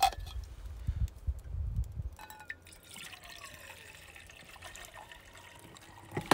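Water poured from a stainless steel bottle into a camping cookpot: a thin trickle into the pot after some low handling thumps in the first two seconds, with a sharp knock near the end.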